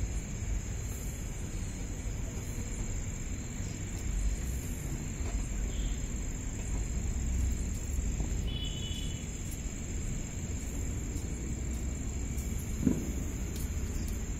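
Crickets trilling steadily at a high pitch over a low background rumble, with a single brief thump near the end.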